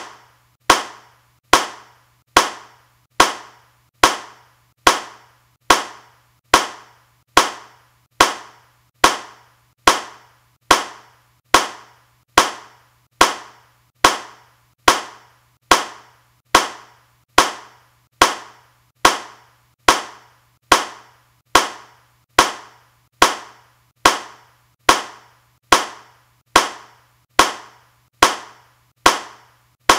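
A single hand clap repeated at a perfectly even pace, a little more than one a second, each clap sharp with a quick decay.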